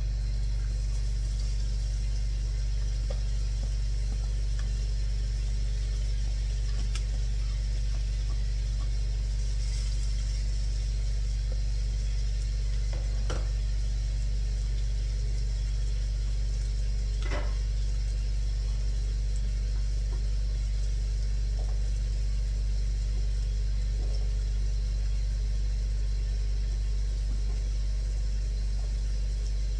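Ninja indoor grill running with a steady fan hum and faint sizzling of food cooking inside. Two short clicks about four seconds apart near the middle.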